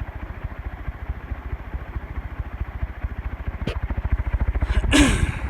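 56-inch cast iron Butterfly industrial ceiling fan running on high, its aluminum blades pushing a strong breeze that makes a fast, even low throbbing. There is a short click about three and a half seconds in and a brief louder rush of air near the end.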